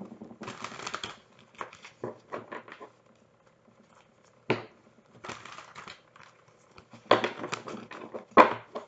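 A deck of tarot cards shuffled and handled: irregular bursts of papery rustling and card snaps with short pauses between, a sharp snap about halfway through and the loudest bursts near the end.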